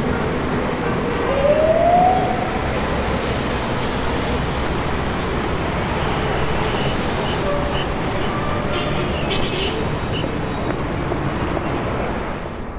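City street traffic: a steady wash of engines and tyres with low rumble, and a short rising tone about a second and a half in. The noise fades out near the end.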